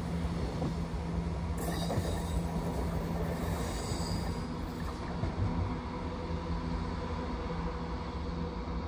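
Chiltern Railways Class 168 diesel multiple unit running with its underfloor diesel engines making a steady drone.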